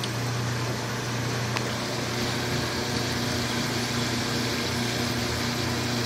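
Potatoes deep-frying in a pot of hot oil: a steady sizzle, over a steady low hum.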